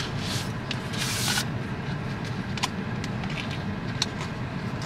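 Cardboard watch-band box being handled: two short sliding rustles in the first second and a half, then a few light taps, over a steady low rumble from the car.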